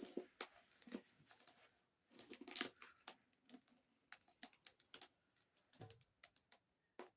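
Faint handling noises of a plastic-covered diamond painting canvas: scattered light clicks and taps, with a brief rustle about two and a half seconds in.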